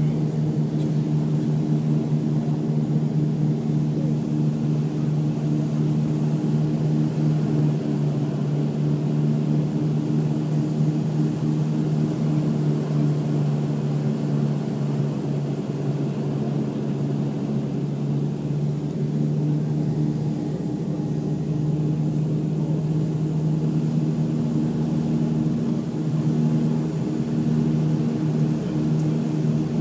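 Steady drone of a Dash 8 turboprop's engines and propellers heard inside the passenger cabin on approach to land, a low hum made of several steady tones. The tones change a little about three-quarters of the way through.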